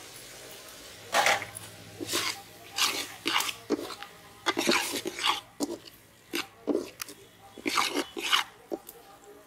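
Long steel ladle scraping and knocking against the inside of a large aluminium cooking pot while stirring chunks of meat in masala, in about a dozen irregular strokes that start about a second in.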